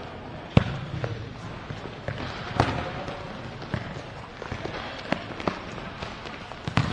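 Futsal ball being kicked and bouncing on an indoor court: a handful of sharp, echoing thuds over steady background noise, the loudest about half a second in.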